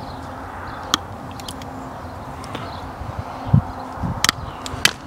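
A few sharp clicks and low knocks from hand tools being handled, one click about a second in and more near the end, over a steady faint outdoor background hum.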